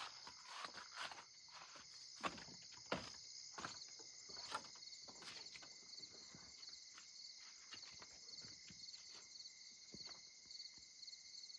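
A steady chorus of crickets chirping in a fast pulsing trill, with scattered footsteps on a wooden deck about once a second.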